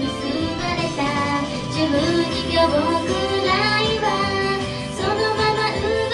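A young woman singing a Japanese idol-pop song into a karaoke microphone over its instrumental backing track.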